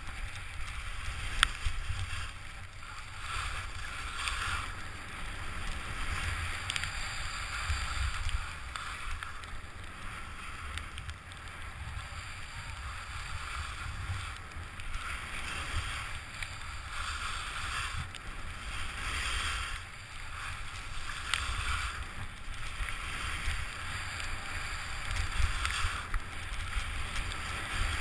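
Skiing fast on packed snow: wind buffets the head-mounted camera's microphone as a low rumble, while the hiss of the ski edges carving the snow swells and fades with the turns, with an occasional sharp click.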